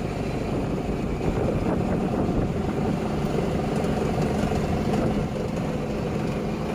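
Fishing boat's engine running steadily while it drives the power take-off that hauls the dol net aboard.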